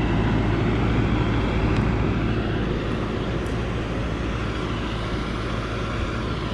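Loaded Hoa Mai log truck's diesel engine running steadily while the truck winches itself through the mud.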